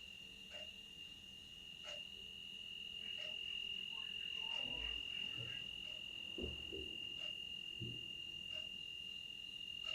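A steady, high-pitched insect trill, with a few soft low knocks in the middle.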